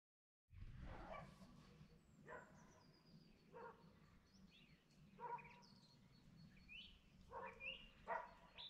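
A dog barking faintly about six times, with small birds chirping higher up and a low steady rumble underneath.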